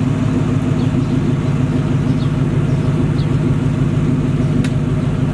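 Tow truck engine idling with a steady low drone. A faint click sounds near the end.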